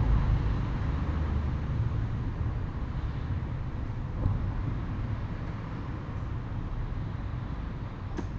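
Steady low background rumble, with a dull thud about four seconds in from a paper-screen shoji sliding door banged shut, and a sharp bang near the end.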